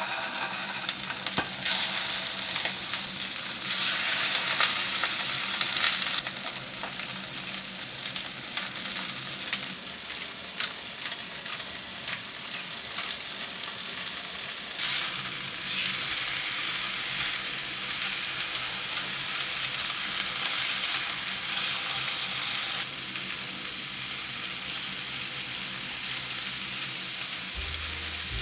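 Steak searing in a hot pan, sizzling and crackling steadily, swelling louder twice for a few seconds.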